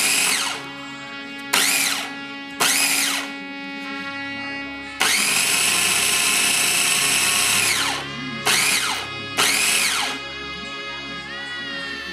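Mini electric food processor pulsing six times, one long run of about three seconds in the middle, to purée cooked carrots and onions in broth; the motor whine falls off as the blade spins down after each pulse.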